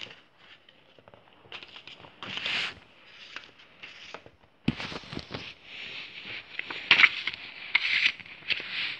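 Handling noise of a plastic DVD case: rustling and scraping, with a few sharp clicks and rattles in the second half as the case is worked open.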